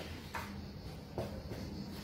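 Hands mixing and squeezing soft shortcrust dough in a mixing bowl: two short, soft squishing or scraping sounds, about a third of a second in and just after a second in, over a faint steady low hum.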